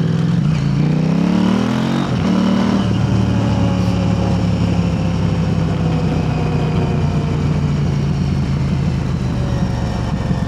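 KTM 890 Adventure R's parallel-twin engine through an Arrow Race-Tech aftermarket exhaust under way: the engine note rises as it accelerates for about two seconds, breaks at a gear change, then holds a steady note that slowly drops in pitch.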